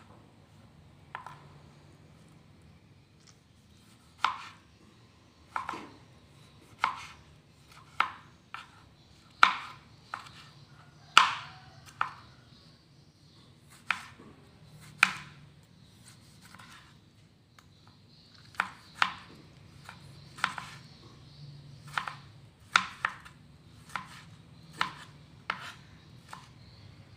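A kitchen knife chopping tomatoes on a plastic cutting board: sharp, separate knocks of the blade on the board, unevenly spaced at roughly one a second, with a short pause midway.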